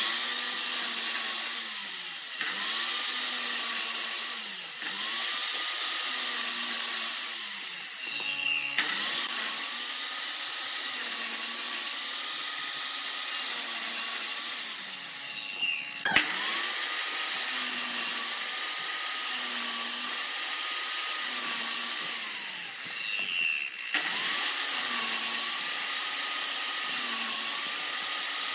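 Sliding compound miter saw running and cutting a pine block again and again. Its motor whine dips in pitch and recovers every second or two as the blade is pulled down into the wood, with a few brief breaks.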